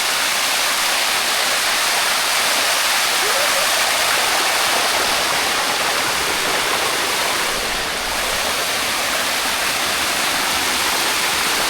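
Water rushing down the limestone cascade of the Sticky Waterfalls in a steady, even rush.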